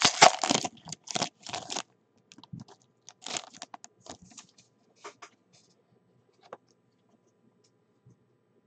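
Foil trading-card pack crinkling loudly as it is handled and torn open for the first two seconds, then softer scattered crackles as the foil is pulled apart and the cards are slid out.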